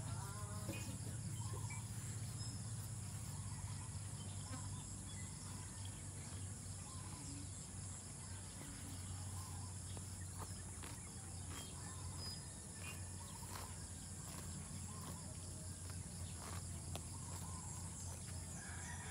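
Steady chorus of insects trilling in rural outdoor ambience, with a low steady hum underneath, faint bird chirps and scattered short clicks.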